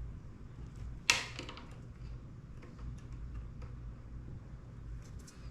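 A single sharp click about a second in, with a few faint ticks of small parts being handled, over a low steady hum.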